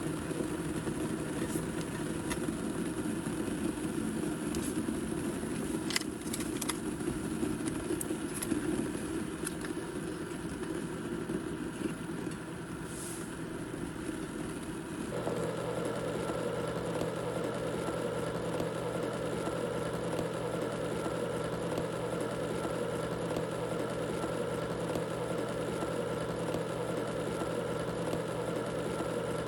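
Kettle of water boiling: a steady rumbling hiss, with scattered ticks and crackles in the first half. About halfway through it changes abruptly to a smoother, steadier rush with a low hum under it.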